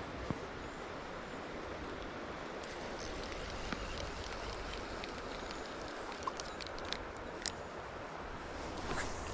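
Steady rushing of river water, with a few small scattered clicks.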